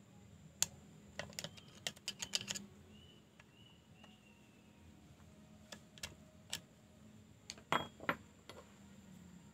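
Sharp little clicks and taps of hand tools and small metal parts being handled. They come in a quick cluster about a second in and again near the end.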